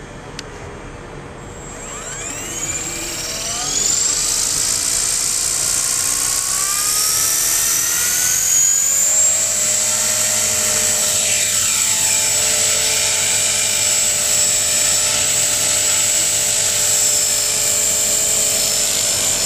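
Electric 450-size RC helicopter, a T-Rex 450 clone, spooling up. The motor and rotor whine rises in pitch and grows loud over a couple of seconds, climbs again, then settles into a steady high whine at full head speed.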